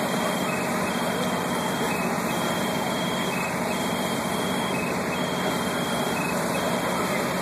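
Fire trucks' engines running steadily at the scene, driving the pumps that feed the hoses and the aerial ladder's water stream, with a steady low hum.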